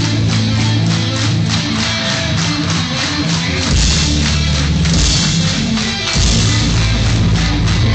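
Metalcore band playing live: loud distorted electric guitars and bass over a fast, steady drumbeat.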